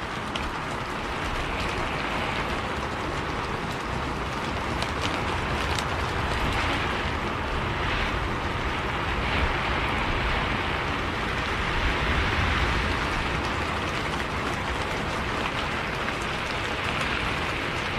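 Steady rain: an even hiss with scattered light drop ticks.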